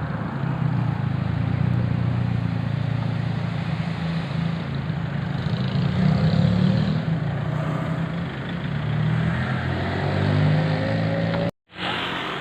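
Bus engine running steadily, then revving up near the end. The sound cuts out for an instant shortly before the end and comes back.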